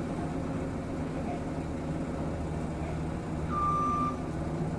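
Dynapac road roller's engine running steadily, heard from inside a vehicle, with a single short high beep about three and a half seconds in.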